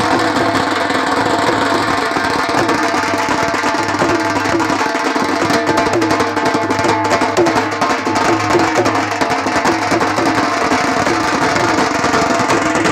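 A group of dhol drums beaten together with sticks in a dense, continuous rhythm.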